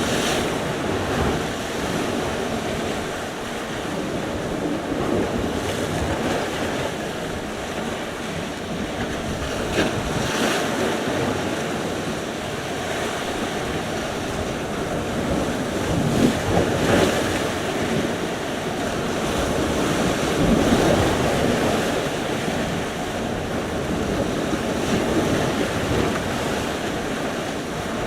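Sea surf: waves breaking and washing on the shore in slow, uneven swells, with wind buffeting the microphone.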